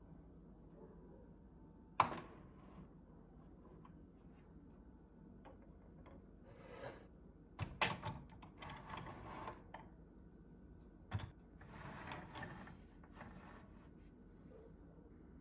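Small cast aluminum ingots being handled and stacked on a wooden table: a sharp knock about two seconds in, then two runs of clinks and scrapes of metal against metal and wood.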